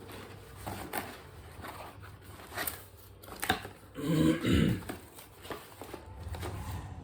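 Scattered clicks and light rustling of a cardboard package and its tape being handled and opened. About four seconds in comes a short vocal grunt, like a throat clearing.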